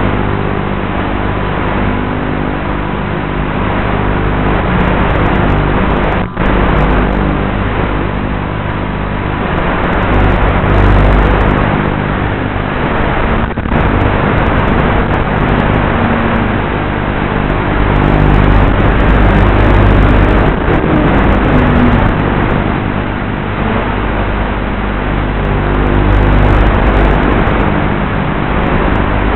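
Electric motor and propeller of a Versa Wing FPV flying wing running in flight, its pitch shifting as the throttle changes, under a loud rush of air noise; the sound drops out briefly twice.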